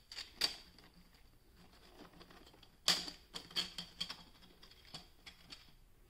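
Light, scattered clicks and taps of 3D-printed plastic rings knocking against each other as they are turned and shifted by hand, with the sharpest click about three seconds in.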